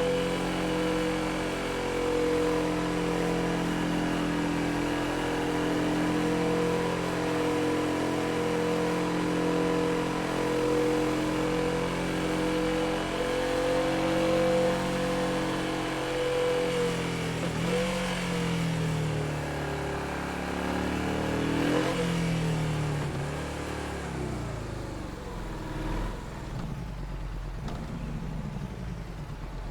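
Yamaha XSR700's 689 cc parallel-twin engine running at a steady speed, then its pitch dips and climbs again twice about two-thirds of the way through, before it settles lower and quieter near the end.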